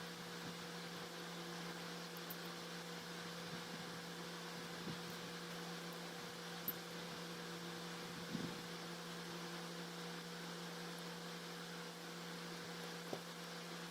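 A steady low electrical hum with a faint hiss, broken by a few soft taps.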